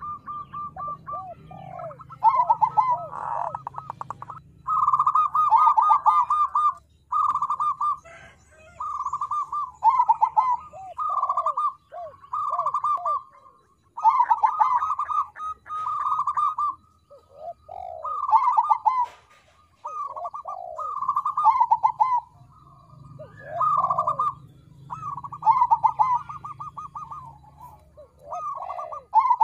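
Crossbred zebra dove (perkutut krosing) singing: a string of short phrases of rapid, ringing coo notes, each phrase ending in lower falling notes, a new phrase every second or two.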